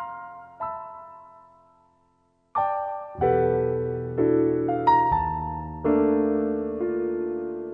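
Solo piano music: a few single notes die away into a brief silence about two seconds in, then fuller chords with deep bass notes come in.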